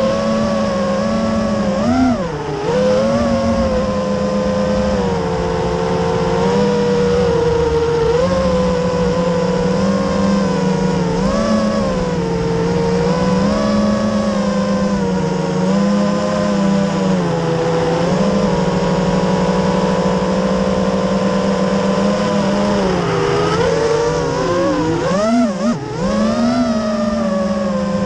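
FPV freestyle quadcopter's brushless motors and propellers, heard through the onboard camera: a steady buzzing whine whose pitch rises and falls with the throttle. There are quick throttle chops and punches about two seconds in and again near the end.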